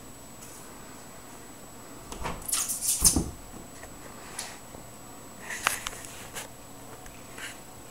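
A cat makes a few short chattering calls at a butterfly it is watching on the wall. About two seconds in there is a louder burst of rustling that ends in a thump.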